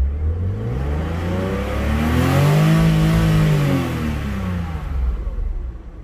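BMW E36 engine revved once, its pitch climbing smoothly for about two and a half seconds, held briefly at the top, then falling back to a low rumble; the ECU has been tuned to raise the rev limit to about 7100 rpm.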